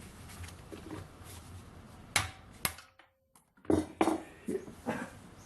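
Several sharp metallic knocks and clacks, hammer blows on a manual impact driver working a tight screw loose, with two lighter clicks of tool handling before them.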